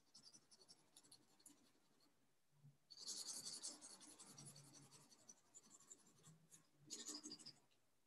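Faint scratching of a colored pencil shading on paper, in two spells: a longer stretch about three seconds in and a short one near the end.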